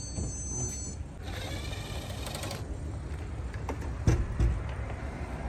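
Hand tools working on a car battery's terminals and hold-down: a rattle of rapid strokes lasting about a second and a half, then two dull knocks about four seconds in, over a steady low rumble.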